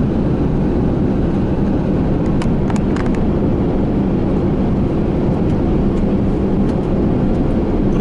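Steady cabin noise of a cargo van cruising on a motorway: a constant engine drone and road and tyre rumble, with a few faint short ticks about two and a half to three seconds in.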